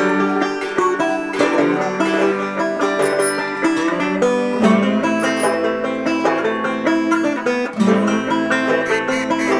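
Background instrumental music of quickly picked plucked strings over a held bass line that changes note twice.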